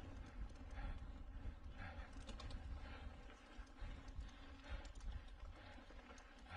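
Mountain bike ridden over a rough dirt trail: scattered rattling clicks from the bike over a constant low rumble of wind on the microphone, with a soft swell that comes back about once a second.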